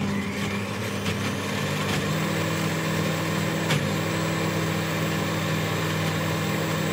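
Countertop blender motor running steadily, its blades churning chickpeas, lemon juice and olive oil into hummus. The motor's tone shifts slightly about two seconds in, and there is a single click near the middle.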